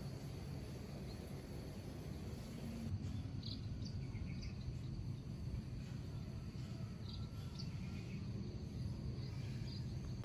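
Faint background ambience: a low steady hum with a few short, high chirps scattered through it.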